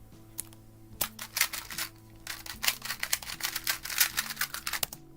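Gan 251 M Pro magnetic 2x2x2 speedcube being turned fast in a speedsolve: a rapid string of sharp plastic clicks about a second in that stops just before the end, over quiet background music.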